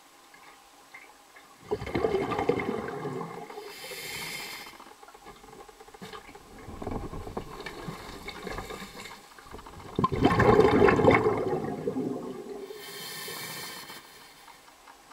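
Water bubbling and gurgling as heard by an underwater microphone, rising in two loud surges about eight seconds apart, each followed by a short high hiss.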